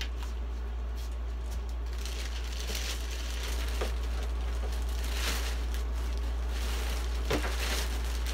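Clear plastic bag crinkling and rustling as it is pulled off a model jet's fuselage. It gets louder about two seconds in, with a few sharper crackles, over a steady low hum.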